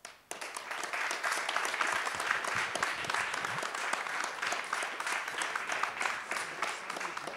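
Audience applauding, the clapping starting a moment in, holding steady and tapering slightly near the end.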